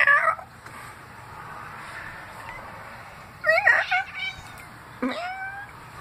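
Domestic cat making odd, chirping meows while watching birds through a window, three calls with wavering, upward-gliding pitch: one right at the start, one about halfway through and one near the end.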